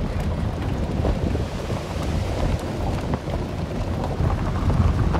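Steady low rumble of a vehicle driving on a rough gravel road, heard from inside, mixed with wind noise on the microphone.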